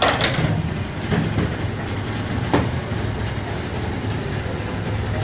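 Steady low hum of running workshop machinery, with three short sharp knocks in the first three seconds.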